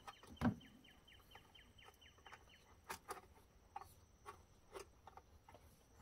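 A fast trill of about a dozen short, high, falling chirps, like a small bird's call, lasting about two seconds, followed by scattered faint clicks and taps.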